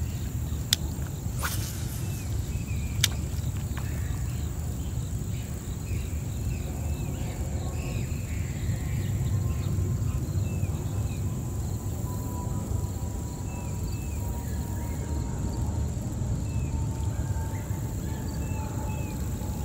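Outdoor ambience by a pond: a steady low rumble under a high, even insect drone and short repeated chirps, with a few sharp clicks in the first three seconds.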